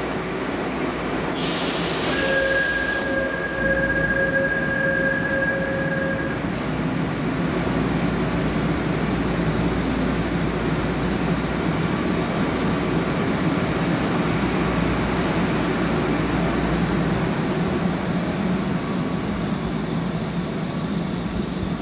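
Electric commuter train at a station: a hiss of air about a second in as the doors close, a steady two-note door warning tone for about four seconds, then the train's running noise as it pulls out of the platform.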